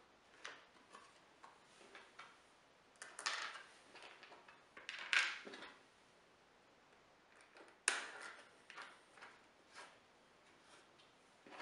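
Small hardware and plywood being handled: metal clicks of T-track bolts, washers and wing nuts, and light knocks and rubs of plywood as a miter attachment is fitted onto a table saw sled. The sharpest knocks come about three, five and eight seconds in.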